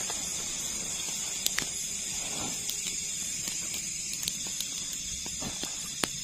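Rustling and a few sharp clicks as camping gear is handled and sorted in a tent doorway, over a steady high-pitched hiss.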